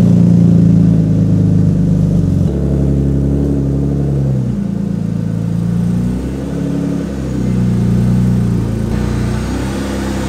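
BMW E36 328i's 2.8-litre M52 inline-six running at idle just after start-up, on a freshly flashed ECU tune with its mass airflow sensor unplugged, through a catless exhaust with a single muffler. The engine note holds steady but shifts in pitch a few times.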